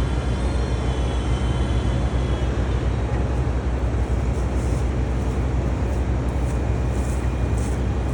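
Heavy diesel equipment engine running steadily with a deep, even rumble.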